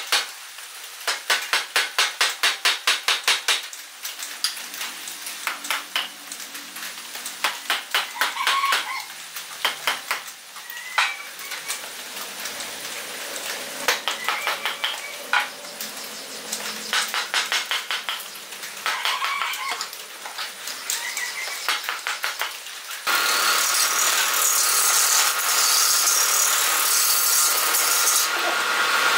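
A lathe chisel cutting a bark-covered log spinning on a wood lathe: first it knocks against the out-of-round surface in rapid, even ticks, then the cut goes on as an irregular rattle and chatter. About 23 seconds in it changes suddenly to a steady, loud hiss of continuous cutting as shavings peel off the blank, now turned round.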